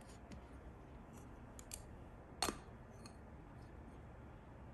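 Faint handling clicks, then one sharp click with a short ring about halfway through, from a springform cake tin and a glass being handled.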